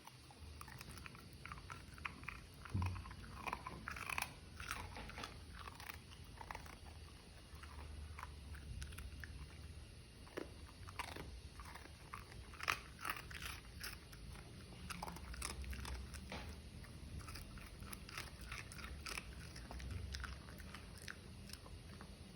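A dog chewing crunchy flavoured toast: a busy, irregular run of sharp crunches and bites.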